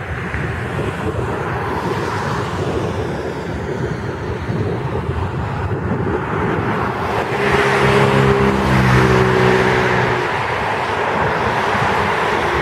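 Steady noise of heavy rain, with a motor vehicle passing on the wet road from about seven and a half to ten seconds in: its engine hum and the hiss of its tyres swell and then fade.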